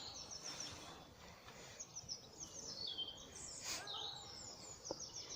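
Small songbirds singing: runs of quick, high chirps, some notes sliding down, over faint outdoor background noise.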